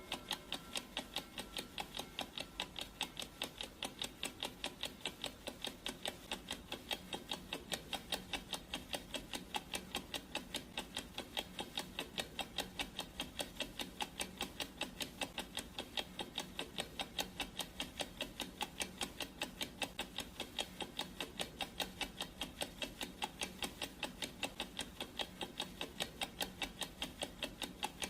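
Clock ticking sound effect: a steady, even run of sharp ticks with no break, over a faint steady low hum.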